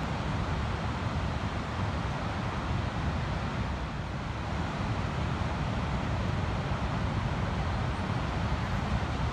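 Ocean surf breaking on a sandy beach, a steady rush with no single wave standing out, over a low rumble of wind on the microphone.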